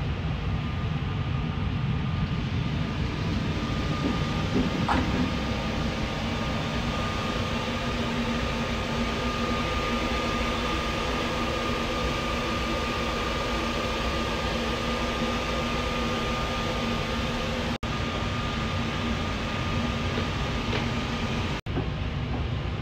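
Steady interior noise of the Sunrise Seto's 285-series electric sleeper train: an even rumble and hiss with a low steady hum and a fainter high tone. It drops out for an instant twice near the end.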